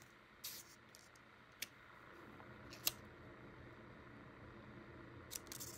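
A few short, light clicks and paper taps from a finger pressing a paper pop-up switch on a paper-circuit page, over a faint steady hum. The sharpest click comes about three seconds in, with a small cluster near the end.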